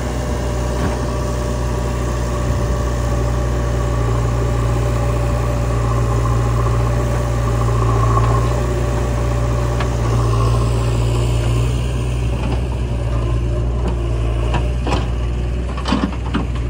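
Diesel engines of a JCB 3DX backhoe loader and a Sonalika tractor running steadily while the backhoe loads soil, with a few sharp knocks near the end.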